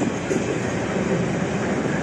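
Container freight train's loaded wagons rolling past on the rails: a steady, continuous noise of wheels on track.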